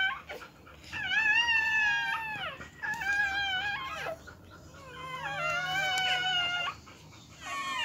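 Newborn Siberian husky puppies crying in thin, high-pitched cries, four of them, each a second or two long.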